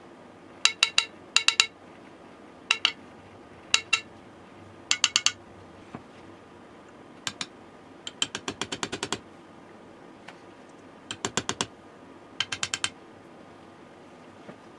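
A small brass-headed hammer tapping the blade and cap of a Lie-Nielsen hand plane to make fine blade adjustments. The light metallic taps each ring briefly and come in short groups of two to four, with a quick run of about ten taps about eight seconds in.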